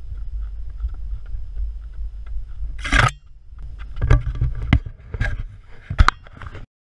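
Low rumble of wind and movement on a body-worn action camera's microphone while a runner steps up rocks and wooden steps. A loud rush comes about three seconds in, then several thuds from footfalls and the camera being handled. The sound cuts off abruptly near the end.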